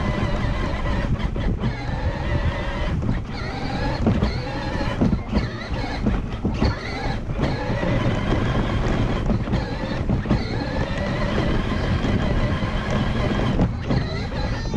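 A toddler making engine-like sound effects with his voice in long, wavering pitched tones, over the rumble of wind on the microphone and a ride-on toy's motor.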